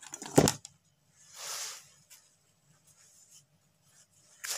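Handling noise from wire and tools on the work surface: a sharp clatter about half a second in, then a short scraping rustle, as a length of red wire is fetched.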